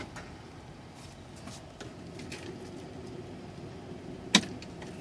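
Steady low hum of a semi truck idling, heard from inside its cab, with scattered light ticks of rain on the cab. One sharp click sounds about four seconds in.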